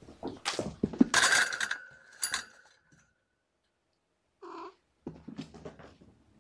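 Kittens scuffling and thrashing on toys and fabric: a burst of scrabbling, rustling and knocks over the first two seconds or so. A single short meow follows about four and a half seconds in, then a few more light scrabbling clicks.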